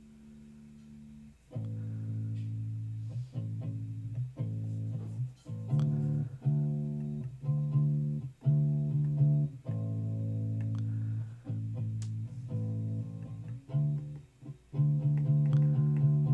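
Recorded track of a plucked-string instrument played back during a virtual sound check: one note held at the start, then from about a second and a half in a line of held notes, roughly one a second, with short breaks between them.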